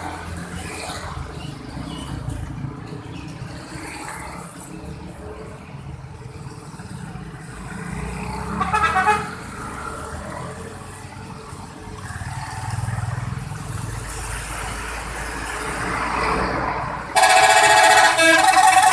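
Steady road traffic with vehicle engines running, then about 17 seconds in a bus's telolet horn starts up loud: a multi-tone musical horn sounding several notes together. A brief louder sound with a wavering pitch comes about nine seconds in.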